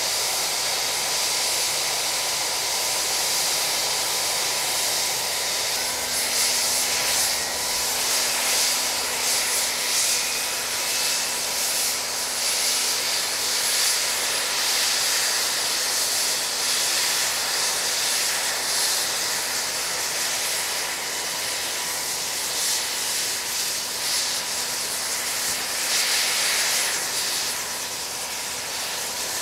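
VH-60 Night Hawk (Marine One) helicopter running on the ground, its twin turboshaft engines and turning main rotor making a steady, loud hissing whine, with a low hum joining about six seconds in.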